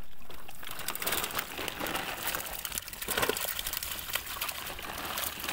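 A net-load of freshly caught roop chand (pacu) flapping and slapping against each other and the wet mesh while hands sort through them: a dense run of short wet slaps and clicks with net rustling.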